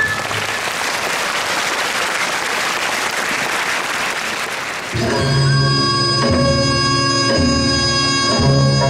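Audience applauding for about five seconds. Then Korean traditional dance music starts, with sustained wind-instrument tones over a low pulsing layer.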